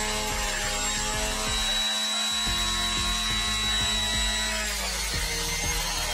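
Electric centrifugal juicer running with a steady high motor whine while celery stalks are pushed down the feed chute, the spinning blade crackling and grinding through them. The motor's pitch drops about five seconds in as the pusher presses the celery down.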